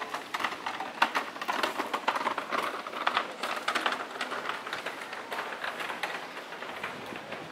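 Footsteps of a person walking on stone paving: a run of irregular clicks and slaps, busiest in the middle seconds.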